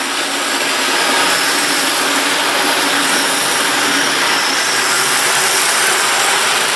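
OO gauge model train, an Airfix 4F Fowler locomotive hauling vintage Tri-ang Pullman coaches, running steadily round the track with a loud, even rumble of motor and wheels on the rails. The noise comes from the old Tri-ang wheels: deep flanges and wheel gauging that has closed up too narrow.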